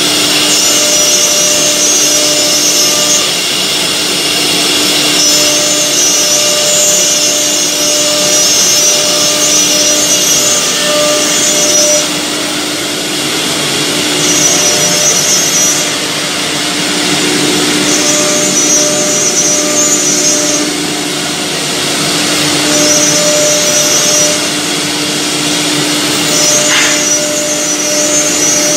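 Four-spindle CNC wood router running and carving a pattern into a wood panel: a steady spindle whine over the hiss of the dust extraction, with a higher whine that comes and goes every few seconds.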